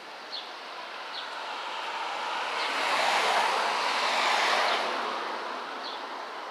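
A car passing by, its noise swelling to a peak in the middle and fading away again.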